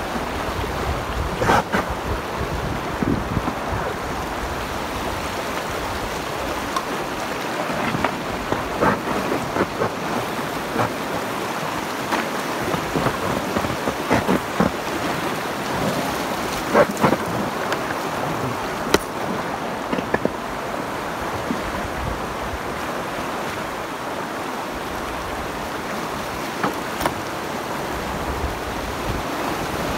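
Shallow river rapids: water rushing steadily over and around boulders, with a few short sharp clicks scattered through.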